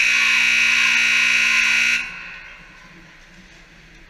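Ice-rink scoreboard horn sounding once: a loud, steady buzz lasting about two seconds that starts and cuts off abruptly, with a brief echo in the arena after it stops.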